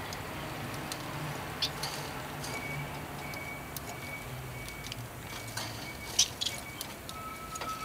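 Small cage finch moving about a wire birdcage: scattered sharp clicks and taps, a pair a little after the start and a louder cluster about three quarters of the way through, over a steady low hum.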